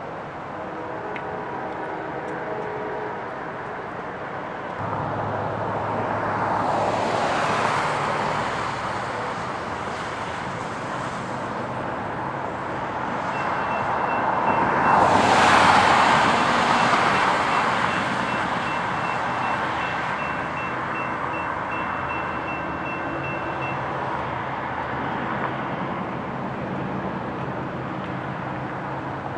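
Norfolk Southern freight train's diesel locomotives approaching under power: a low diesel engine hum comes up about five seconds in and holds steady, with two louder rushing swells, the loudest about halfway through.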